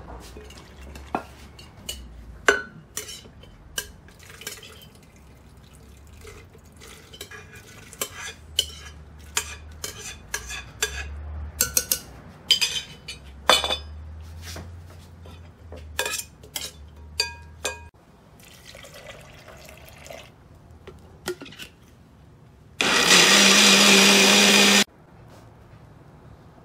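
Metal spoon clinking and tapping against a glass blender jar in many sharp clinks as soaked soybeans are scooped in. About twenty-three seconds in, the electric blender runs loudly for about two seconds, grinding the soybeans, then stops abruptly.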